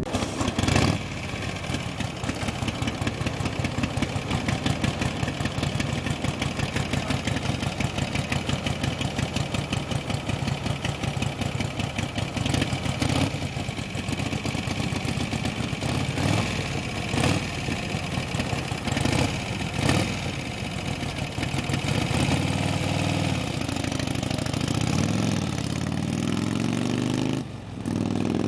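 A race vehicle's engine idling close by with a fast, lumpy pulse, blipped to higher revs several times. A brief drop near the end.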